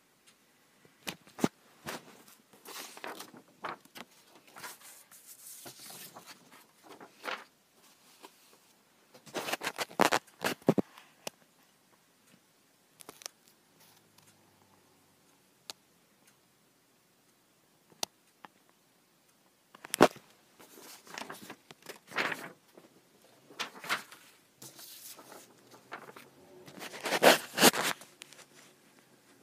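Sheets of paper being handled and swapped on an upholstered seat: irregular rustling and scraping with sharp clicks, in clusters with quiet gaps, loudest about ten seconds in, at twenty seconds and near the end.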